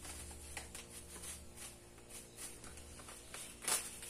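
Faint rustling of a plastic bag and small handling clicks of kitchen utensils, with one louder knock near the end.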